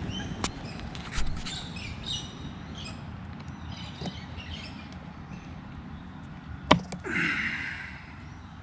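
A few sharp little clicks as blade fuses are pulled out of a Kawasaki KLR 650's plastic fuse box to check them for a blown one; the loudest click comes about two-thirds of the way through. Birds chirp in the background.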